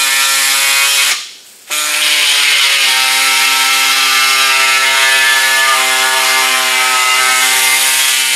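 Pneumatic air saw cutting a notch into a fiberglass grill shell, running steadily with a high air hiss. It stops briefly about a second in, then starts again and keeps cutting.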